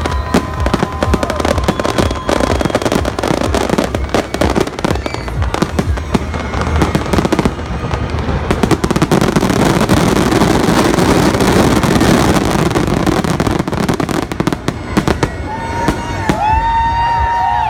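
Fireworks bursting in rapid succession over a music soundtrack, with many sharp bangs and crackles. Near the end, whistling tones rise and fall above the bangs.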